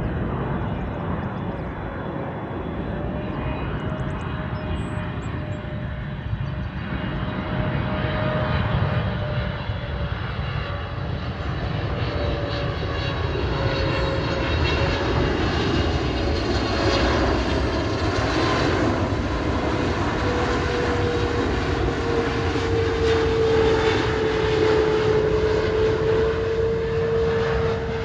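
Jet airliner engines running loud and steady, a low rumble under a whine that slowly drops in pitch.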